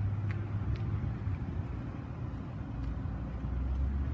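Steady low outdoor rumble that drops slightly in pitch about three seconds in, with a few faint clicks.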